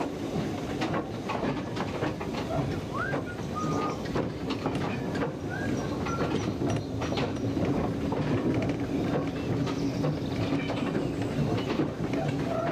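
Steam locomotive moving slowly through pointwork, heard from its own footplate: wheels clicking and clattering over rail joints and crossings amid a busy running rattle, with a few short squeaks near the start.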